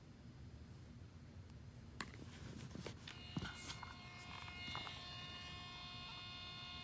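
Nelko P21 thermal label printer running: a few sharp clicks of handling, then from about three seconds in its small feed motor whines steadily as a label feeds through.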